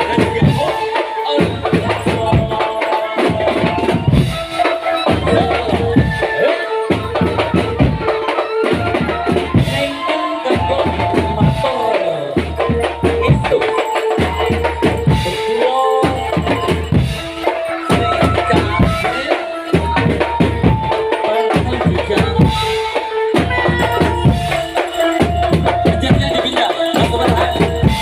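Drum band music: a steady, driving beat of low drums with percussion, under a melody of held notes.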